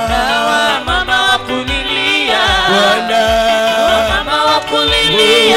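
Live Swahili gospel praise music: a man's voice singing runs that bend up and down over held accompaniment, with a steady low beat a little faster than once a second.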